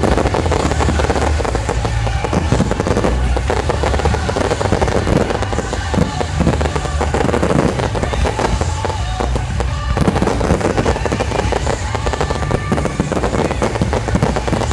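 A fireworks display with shells bursting and crackling densely, over a music soundtrack with a steady bass.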